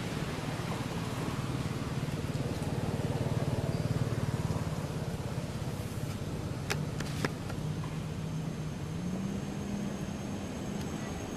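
Distant engine running with a steady low drone, its pitch stepping up about nine seconds in, with two sharp clicks a little past the middle.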